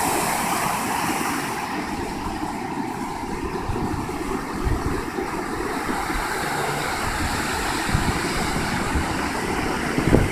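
Ocean surf washing onto the shore in a steady hiss, with wind buffeting the microphone in a few low thumps.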